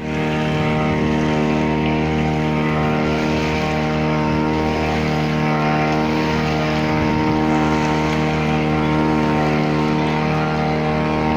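Boat engine running at a steady speed, a constant drone that does not change pitch.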